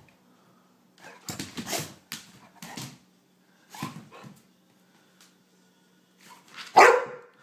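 A puppy barking in a few short bursts, the loudest near the end: alarmed barks at a lighter's flame.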